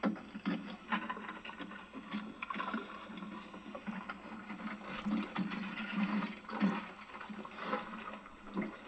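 Hand oyster tongs being worked from a small boat: irregular knocking and clattering of the wooden shafts and tong head against the boat, with water sloshing.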